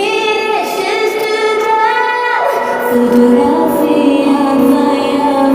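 A woman singing a pop ballad cover with long held notes that step between pitches, over backing music.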